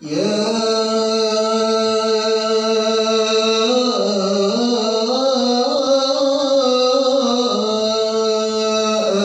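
Man reciting the Quran in melodic qiroah style into a handheld microphone: one long unbroken phrase on a held pitch, wavering in ornamented turns through the middle and settling again before it breaks off near the end.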